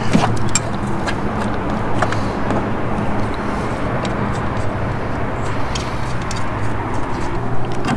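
Steady low mechanical hum with a few faint clicks as the trimmer rack's adjusters are tightened by hand.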